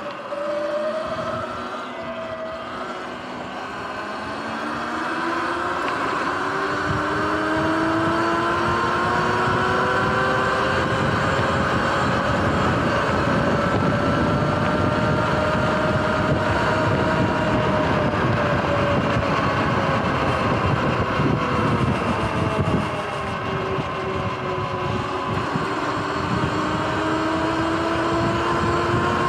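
Sur-Ron electric dirt bike's motor whining, rising in pitch as it accelerates from almost a standstill, with rushing wind and tyre noise building as speed climbs. The whine drops in pitch as the bike slows about two thirds of the way in, then rises again near the end.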